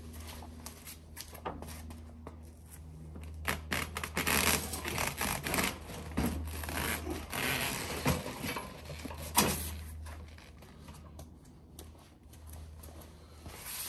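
A loaded electric hand truck being tipped back onto its wheels by hand: rubbing, scraping and rustling of the steel frame and the plastic-wrapped load, with a sharp knock about nine seconds in. A low steady rumble runs underneath.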